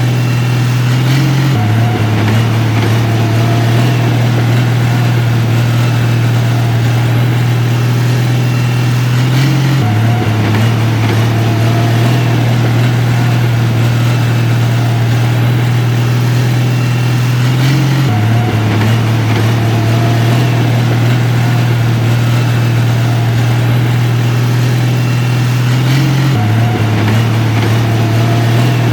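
Heavy diesel engine of construction equipment running steadily with a deep, even hum. The sound repeats in an identical cycle about every eight seconds, like a looped engine recording.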